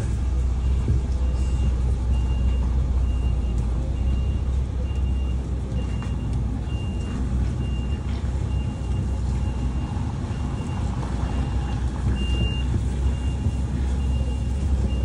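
Lorry's diesel engine running steadily as it moves slowly across a yard, with a reversing alarm giving short single-tone beeps about once a second.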